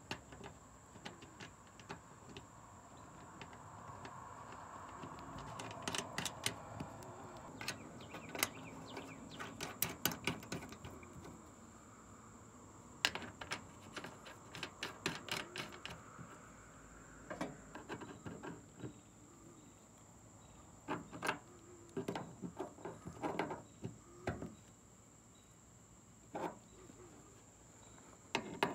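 Light metallic clicks and taps of brass service-valve caps being threaded onto a mini split outdoor unit's refrigerant valves and tightened with an adjustable wrench, coming in scattered clusters. A steady high insect trill runs underneath.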